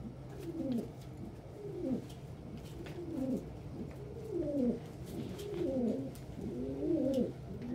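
Domestic pigeons cooing: a steady run of short coos, each falling in pitch, about one or two a second.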